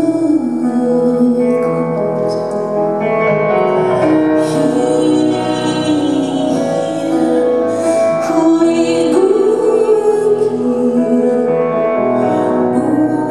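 Live performance of a song: a woman singing long held notes over piano accompaniment, recorded from the audience.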